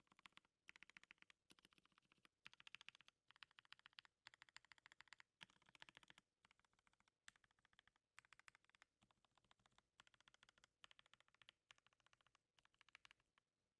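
Keys on a stacked-acrylic Stacked1800 mechanical keyboard with Gateron Hippo switches and PBT keycaps clacking in quick bursts of rapid presses, each burst under a second, with short pauses between.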